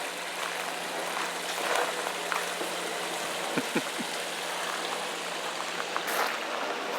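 Steady rushing noise like running water, with a few faint clicks.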